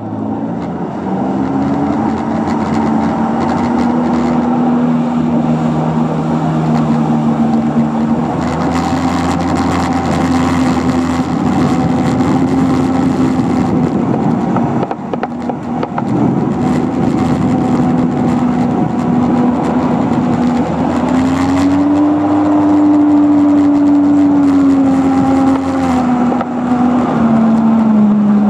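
Jet ski engine running at speed, a steady whining drone. Its pitch climbs about 21 seconds in, holds for a few seconds, then drops lower near the end.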